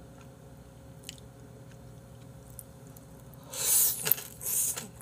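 A mouthful of Jjapagetti black-bean noodles slurped in and chewed close to the microphone: two wet, noisy bursts starting about three and a half seconds in.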